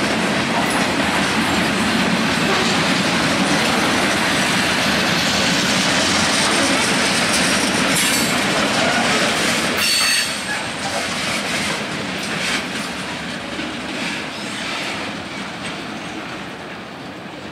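Freight train of covered hopper cars rolling past close by: a steady rolling clatter of steel wheels on the rails, with a couple of brief high wheel squeals. About ten seconds in, the noise drops as the end of the train goes by, then fades away.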